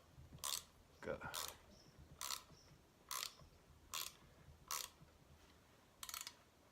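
Spanner turning a threaded rod to draw a star nut into a bicycle fork's steerer tube, giving a sharp click about once a second, about seven times, in a ratchet-like rhythm. The turning is going easily now that the star nut is inside the tube.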